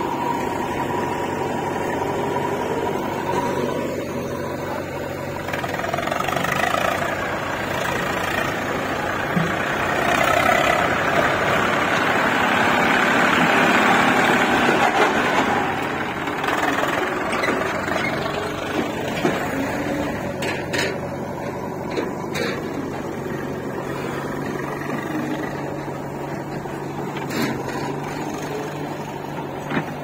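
Diesel engines of a JCB 3DX backhoe loader and farm tractors running steadily. The sound grows louder and busier for several seconds in the middle, and a few sharp clicks come later on.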